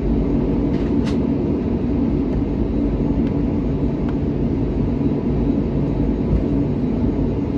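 Airbus A321's jet engines running at taxi power, heard inside the cabin: a steady low rumble with a constant hum.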